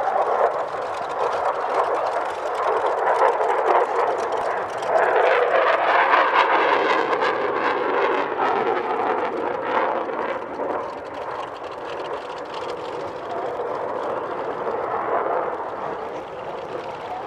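Vought F4U Corsair's Pratt & Whitney R-2800 radial engine running steadily as the propeller fighter taxis past, loudest from about five to ten seconds in and easing off after.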